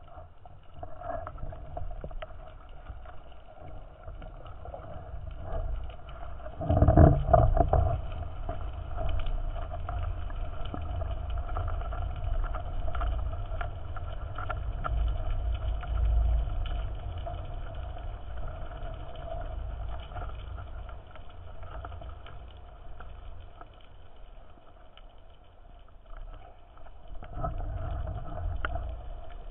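Muffled underwater rushing of water against a camera's waterproof housing as the diver swims, with a faint steady hum. It surges loudest about seven seconds in and again near the end.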